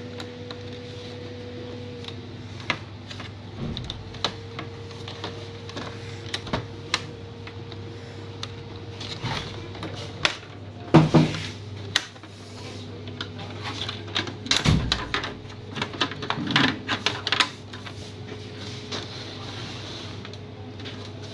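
Plastic clicks and knocks from the scanner lid and hinge of an HP LaserJet MFP M233 printer being worked loose by hand. They come in scattered bursts, the loudest cluster about eleven seconds in, over a steady low hum.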